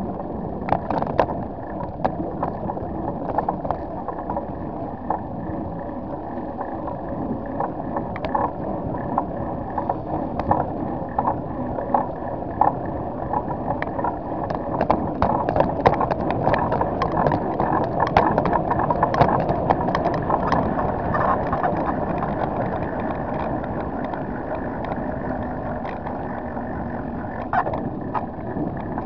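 Bicycle riding along a paved path: a steady rolling rumble with frequent small rattling clicks, busiest and loudest about halfway through.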